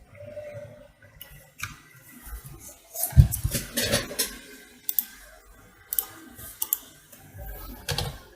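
Scattered light clicks and taps of handling on a repair bench, with a louder knock about three seconds in.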